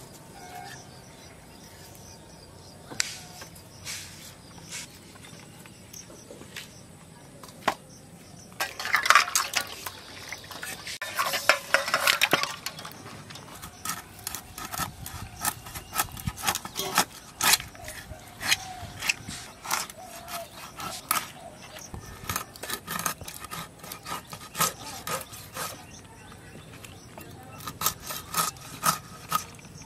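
A katla fish being scaled and cut on a bonti, a curved fixed blade: quick scraping strokes of the fish against the blade, in a dense, louder run about nine to twelve seconds in, then irregular short scrapes and knocks as it is cut.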